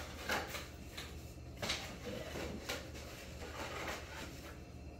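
Paper and a cardboard shoe box being handled: scattered rustles and soft knocks, over a low steady hum.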